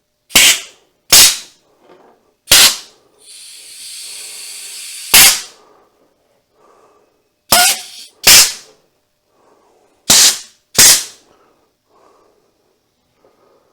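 Air Vise AV-T-4 pneumatic machine vise cycled open and closed with a push-button air valve on about 100 psi of shop air: eight sharp, loud pops of air and jaw movement, mostly in pairs about a second apart. About three seconds in there is a steady hiss of escaping air that lasts about two seconds and ends in one of the pops.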